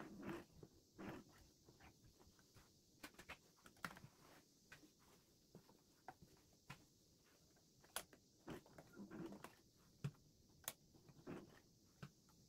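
Faint, irregular clicks and low knocks from a household sewing machine stitching slowly through thick layered denim.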